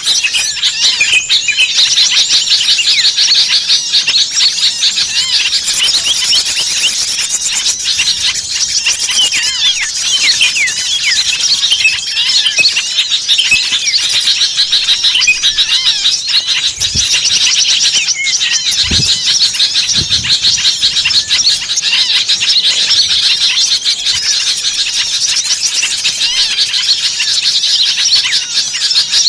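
Dense, noisy chorus of many small songbirds chirping and twittering rapidly over one another without a break: a bird-luring (pikat) recording of agitated small birds, used to draw wild small birds in.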